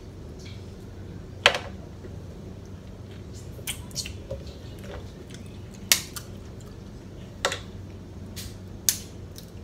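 Snow crab leg shells being snapped and picked apart by hand and with a crab fork: about half a dozen sharp cracks, unevenly spaced, over a steady low hum.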